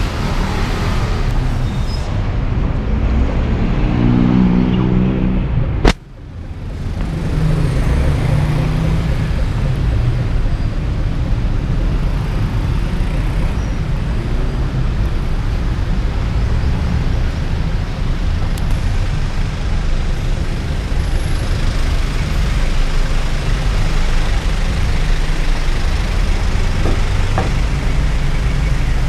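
Street traffic running past: a steady rumble of car and motorbike engines, with one engine close by a few seconds in. A single sharp click about six seconds in, after which the sound briefly drops before coming back.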